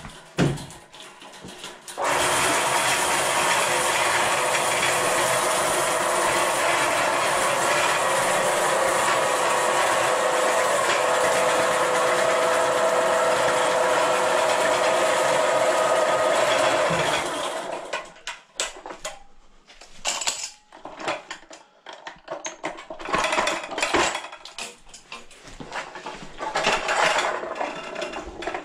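Electric Eel Model C drain machine running steadily, its motor spinning the cable inside the drain line, for about fifteen seconds before it stops. After that come scattered metallic clanks and rattles of the cable being handled.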